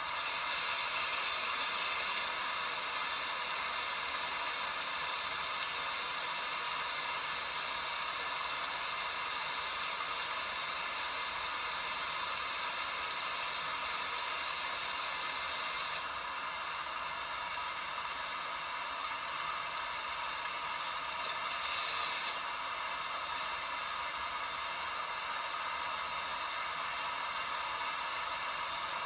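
LG WT5680HVA top-load washing machine running through its cycle, heard as a steady water-like hiss. The hiss steps down about 16 seconds in and swells briefly around 22 seconds.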